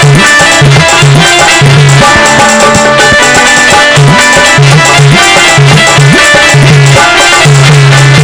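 Instrumental break in a Hindi folk song: hand-drum rhythm under a sustained melody, with a low note pulsing on the beat and no singing.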